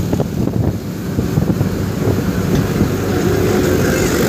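Diesel engine of a Hindustan 50 hp tractor running steadily while hauling a heavy load of sugarcane, with wind rushing over the microphone.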